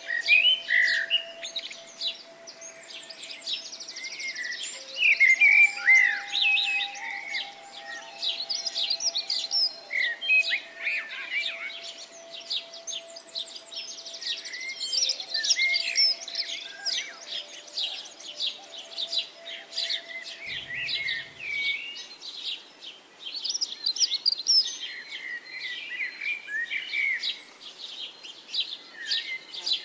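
Small songbirds singing and chirping: many overlapping high-pitched calls, quick trills and whistled glides in a continuous chorus.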